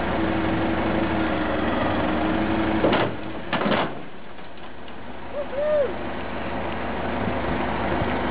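Diesel engine of a telescopic handler running as it holds and lifts a slung aircraft fuselage, with a steady whine until about three seconds in. A few sharp metal clunks follow, the engine drops to a lower level for a couple of seconds, then picks up again.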